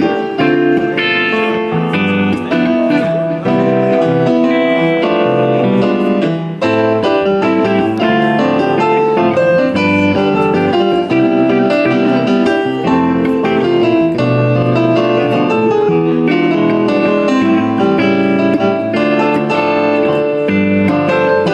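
Live instrumental music from an electric guitar and a Yamaha stage keyboard playing a piano sound, with continuous melody lines and chords.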